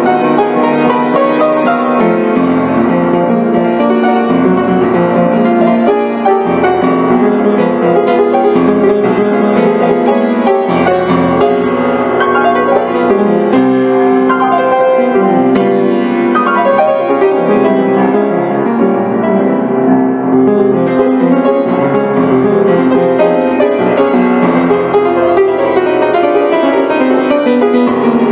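Background piano music playing without a break.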